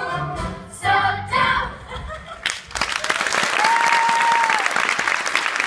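A sung song ends about two and a half seconds in, and an audience breaks into steady applause, with one held whistle of about a second in the middle of the clapping.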